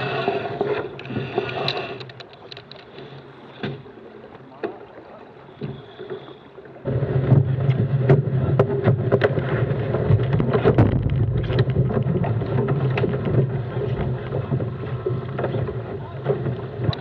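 Water rushing and splashing along a small racing keelboat's hull, with wind buffeting the microphone. About seven seconds in, it jumps abruptly to a much louder, rumbling rush of bow spray with many sharp slaps as the boat runs fast downwind under spinnaker.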